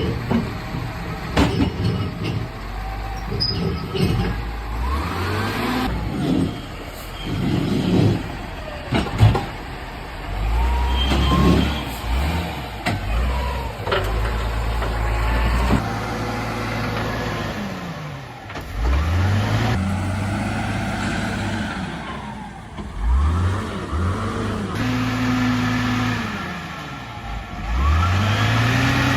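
Heavy diesel engines of logging trucks and loading machinery working hard, revving up and down again and again. The engine note changes abruptly several times.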